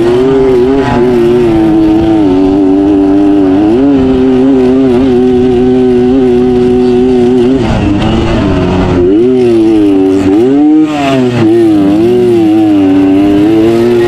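Loud racing motorcycle engine at high revs, holding a steady pitch for several seconds, then dropping and climbing again a few times in the second half as the throttle is eased and reopened.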